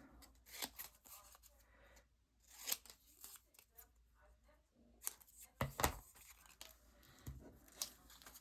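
Paper craft scraps being handled and cut with scissors: faint rustles and a few short snips and clicks, with a cluster of sharper clicks about five to six seconds in.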